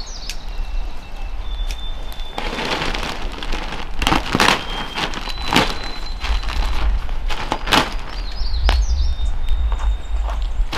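A run of irregular knocks and scrapes, loudest about four and eight seconds in, over a steady low rumble.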